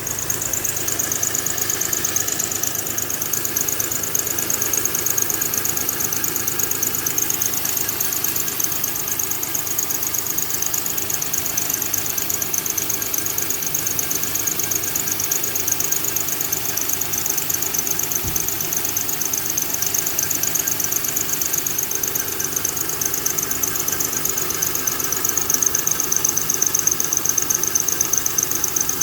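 2000 Honda Accord 3.0 V6 engine running with a steady high-pitched squeal from the belt tensioner, pulsing rapidly. The tensioner squeals each time it jumps, the sign of a bad belt tensioner.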